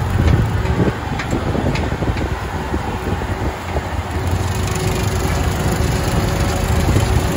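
LS MT347 compact tractor's diesel engine running steadily under way, with a few light ticks about one to two seconds in.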